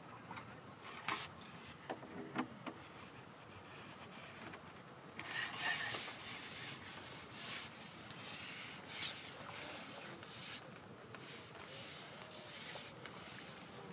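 Intermittent rubbing and scraping noises in short spells, with a few sharp clicks; the sharpest click comes about three quarters of the way through.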